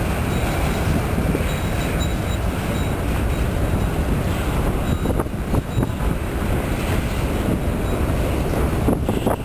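A freight train's covered hopper cars rolling past close by: a steady rumble of steel wheels on rail, with a few sharp wheel clacks about halfway through and again near the end.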